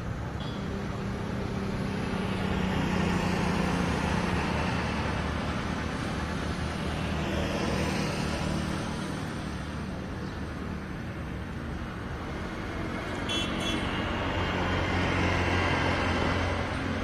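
Road traffic on a city street: cars and motorcycles running past, swelling as vehicles go by about three seconds in and again near the end.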